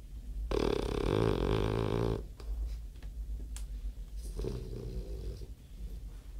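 French bulldog snoring: a long, loud snore about half a second in that lasts under two seconds, then a softer snore about four and a half seconds in.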